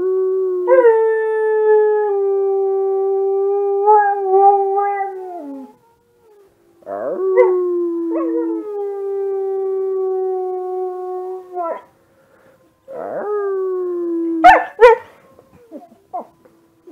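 Husky-mix puppy howling three times: two long, steady howls of about five seconds each, the first sliding down in pitch at its end, then a shorter one. Two short, sharp sounds follow near the end. He is howling along with wolf sounds played online.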